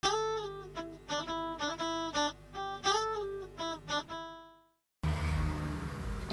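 Intro music: a short plucked guitar phrase of quick notes that fades out about four and a half seconds in. After a brief silence, a steady low background hum starts near the end.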